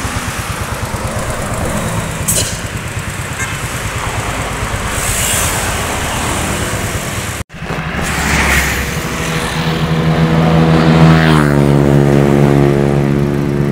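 Tour bus engines running and pulling away as buses pass, with a pulsing rumble. The sound cuts out for an instant about halfway, and a steady droning tone that drops in pitch a little later fills the second half.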